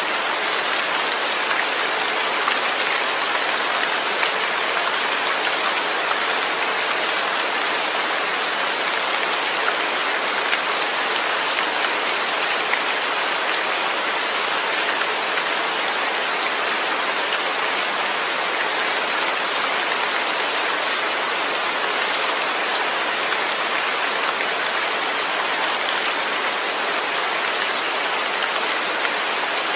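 Steady rain falling, an even hiss that doesn't change, with no thunder.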